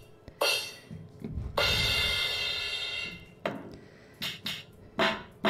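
Artiphon Orba 2 playing drum samples through its small built-in speaker as its pads are tapped: a short hit, then a cymbal wash lasting about two seconds, then a few short drum hits near the end.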